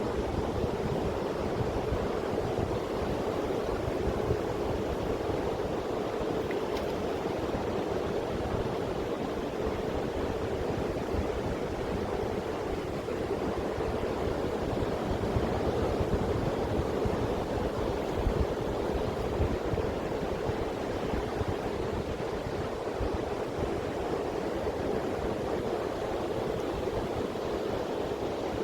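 Sea surf washing onto a beach: a steady rushing noise, with an irregular low rumble of wind on the microphone.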